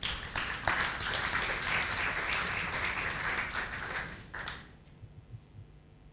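Audience applauding for about four and a half seconds, then dying away.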